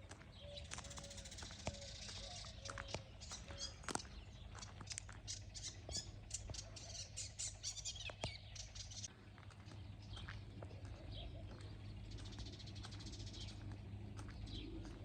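Birds chirping in the early morning, many short high chirps coming and going, with a run of short low repeated calls in the first three seconds. A steady low rumble sits underneath, with a few sharp clicks.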